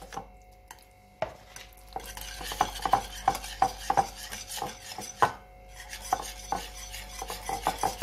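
Yogurt being beaten by hand in a white bowl: a utensil stirring fast through the thick curd, clicking and scraping against the bowl several times a second. It starts about a second in, with a brief pause about five seconds in.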